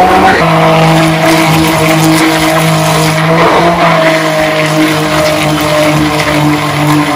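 Electric stick hand blender switched on and running steadily, its motor humming at a fixed pitch as it churns dry okra powder and water into a smooth paste in a plastic jug.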